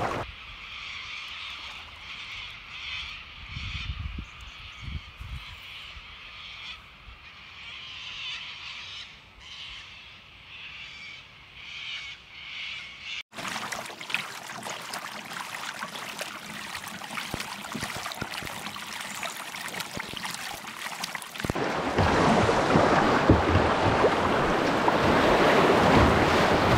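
Birds calling over a calm river, then a sudden cut to the quiet wash of water along a kayak's hull. Near the end comes the loud, steady rush of whitewater around the kayak's bow as it runs a rapid.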